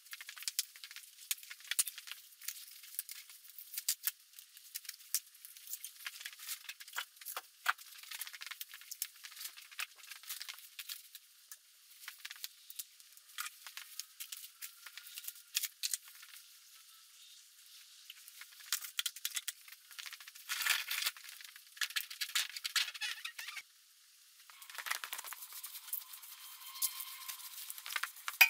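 Irregular light clattering: small taps, clicks and rattles of tools and objects being handled and moved about.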